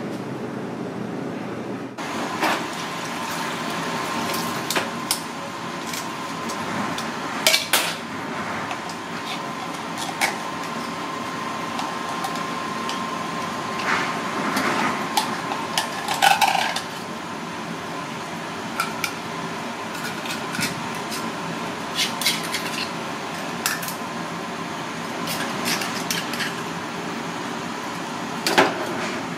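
Scattered sharp clicks and clinks of red clam (ark shell) shells and a shucking knife against a stainless steel bowl and counter as the clams are handled and opened, with a faint steady tone underneath for the first half.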